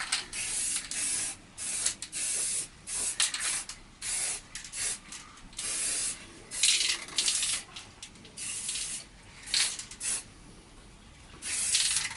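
Spray paint hissing from an aerosol can in repeated short bursts, about fifteen squirts of a fraction of a second each. It is a touch-up coat over white 3D-printed plastic still showing through in a crack.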